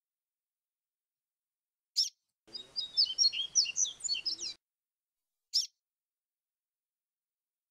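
Papa-capim grego (coleiro grego flautado, a seedeater) singing: one quick call about two seconds in, then a rapid two-second phrase of fast, sliding high notes, then another quick call.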